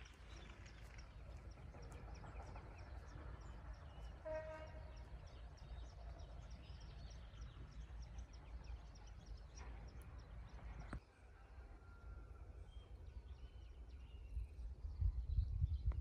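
Outdoor ambience: a steady low rumble with faint, repeated high chirps and a short pitched call about four seconds in. The rumble swells louder in the last second.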